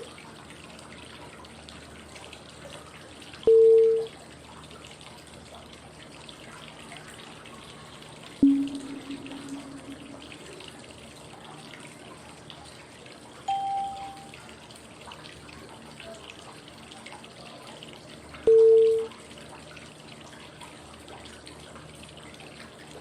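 Steady flowing-water white noise with short prompt tones every five seconds, marking the inhale, hold and exhale phases of 5-5-5 breathing. Four tones sound: middle, low, high, then middle again, the pitches cycling high, middle, low.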